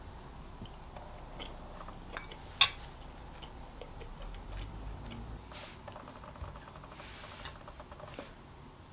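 A metal spoon set down on a ceramic plate, with one sharp clink about two and a half seconds in, among faint small clicks of tableware being handled.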